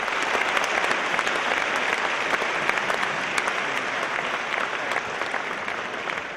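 Audience applauding after a song, with dense clapping that eases off near the end.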